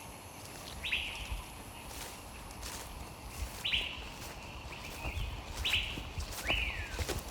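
A bird repeating a short call four times, each note starting sharply high and sliding down in pitch, over faint clicks and a low rumble.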